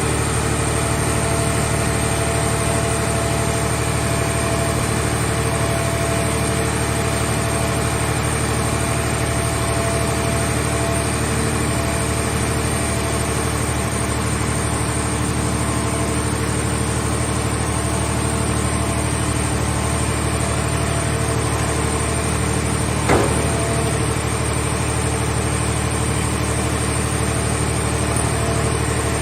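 Hydraulic scrap-car shell baler running steadily: its power unit gives a constant low hum with several steady tones. Late on there is a single sharp knock.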